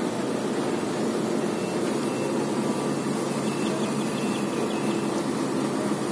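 Steady drone of a construction machine's engine running at a constant pitch and level, with no blows or knocks.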